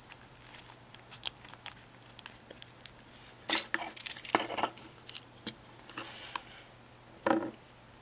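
The plastic shell halves of a Hyundai Sonata smart key fob being handled and pressed together: scattered light clicks and taps, with a few louder plastic clacks, the loudest near the end as the halves snap shut.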